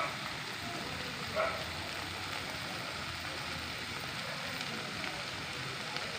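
Corned beef sizzling steadily as it fries in butter in a pan. A short brighter sound stands out about a second and a half in.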